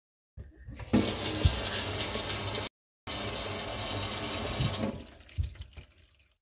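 Kitchen mixer tap running water into the sink in a steady rush that cuts off sharply, starts again a moment later and fades out near the end; the water flowing through the IKEA RINGSKAR mixer is leaking from its pull-out spray hose.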